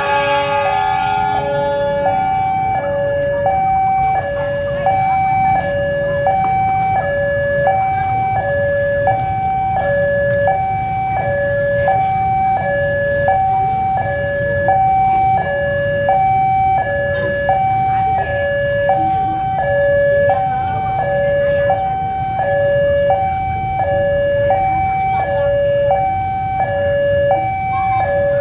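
Railway level-crossing warning alarm sounding a steady alternating two-tone signal. A train horn sounds at the start and fades out about two seconds in, over a low engine rumble.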